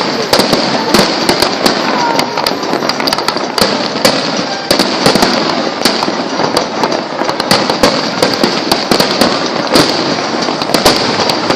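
Firecrackers going off in a dense, unbroken crackle, with many sharp bangs at irregular intervals.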